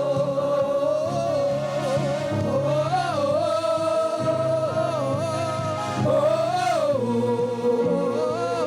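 Live gospel praise song: a lead singer holds long, drawn-out notes that swell and bend upward a few times, over steady instrumental backing.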